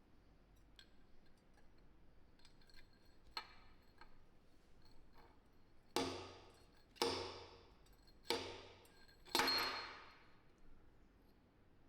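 A few faint clicks and small taps, then four sharp knocks about a second apart on something hard that rings briefly after each strike.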